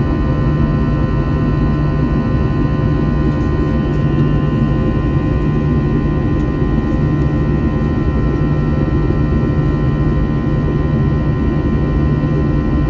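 Steady jet engine and airflow noise inside the cabin of an Airbus A321, a constant drone with several steady humming tones over it.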